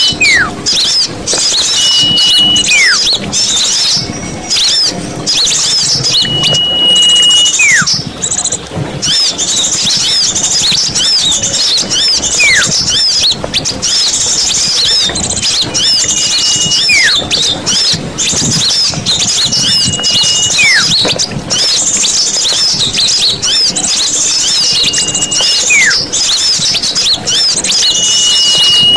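Bird-lure recording of many small birds chirping rapidly together in a dense chorus. Every few seconds one call stands out: a short held high whistle, then a quick downward-sliding whistle.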